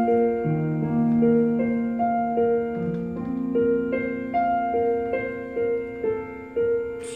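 Yamaha stage keyboard played with a piano sound: a soft instrumental passage of broken chords, a note about every half second over held low notes, growing quieter toward the end.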